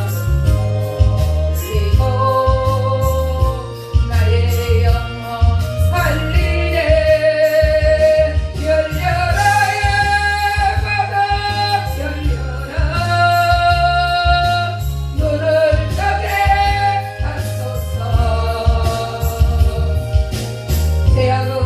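Gospel song sung by a solo voice over a backing track with a steady bass beat, notes held long and sliding between pitches.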